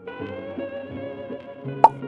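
Background music, with one short, sharp pop sound effect near the end as the sticks eat the clay blob.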